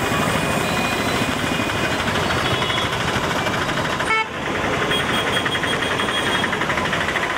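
Road traffic noise with vehicle engines running and horns honking, with a short break about four seconds in.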